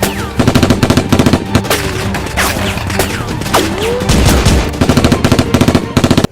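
Machine-gun fire sound effects: rapid bursts of shots, several times over, with falling whistle-like swoops between them.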